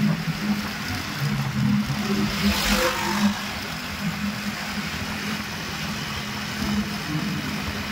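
Vehicle engine running steadily on the move, its pitch shifting slightly, with a brief whoosh about three seconds in.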